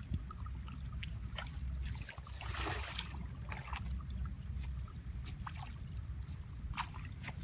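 Water sloshing, with scattered small splashes and a louder splashing stir about two and a half seconds in, over a steady low rumble.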